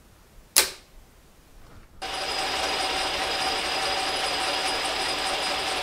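A single sharp click, then about two seconds in a small metal lathe is heard running steadily, a mechanical whir of gears and drive with a few constant tones.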